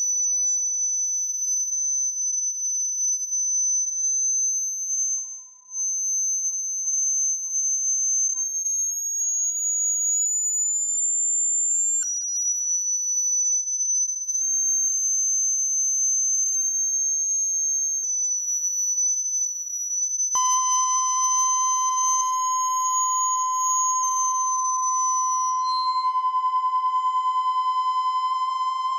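High, thin electronic sine tone that slowly wavers and creeps upward in pitch, dropping back down about halfway. About twenty seconds in, a steady lower test-tone-like hum enters with a stack of higher steady tones above it.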